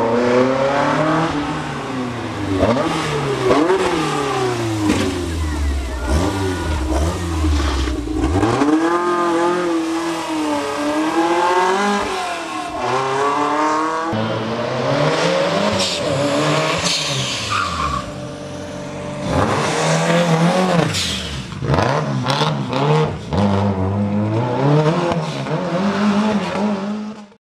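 Historic rally cars driving one after another through a tight corner, engines revving up and dropping back over and over as they brake and accelerate past.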